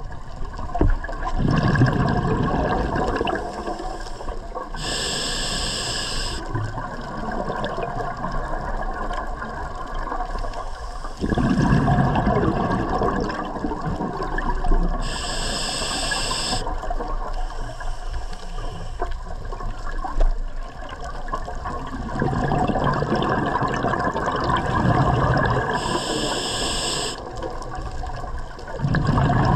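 Scuba diver breathing through a regulator, heard underwater: long stretches of bubbling exhalation broken three times, about ten seconds apart, by a short high hiss of inhalation through the demand valve.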